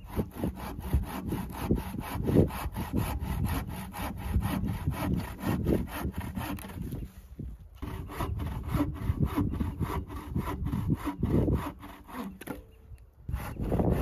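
Bow saw cutting through a dead tree branch in quick, even back-and-forth strokes, with a brief pause just past halfway and another near the end.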